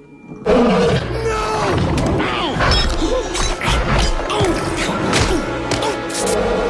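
Animated-film soundtrack: dramatic orchestral score with crashing and thudding impacts. It starts abruptly about half a second in.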